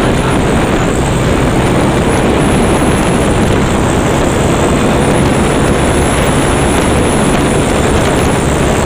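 A motorcycle riding steadily at road speed: loud, even wind rush on the microphone, with the engine running underneath.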